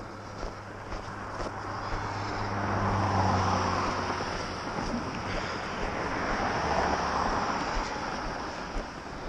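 Two cars pass on a snow-covered road, one after the other. Each one's tyre and engine noise swells up and fades away, the first about three seconds in and the second about seven seconds in.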